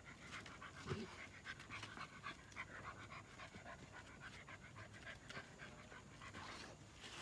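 Dog panting, a faint, quick run of short breathy puffs.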